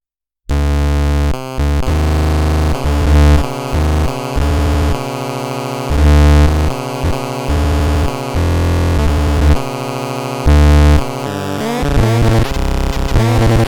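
VAPETRON 889C modular synthesizer playing buzzy held tones that jump from pitch to pitch every fraction of a second to a second. About three-quarters of the way through they turn into quick warbling pitch sweeps.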